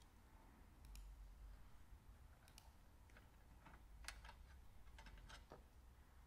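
Faint, scattered metallic clicks of cleco pliers and a spring cleco fastener being set into a drilled hole in an aluminum fuselage angle, over near-silent room tone.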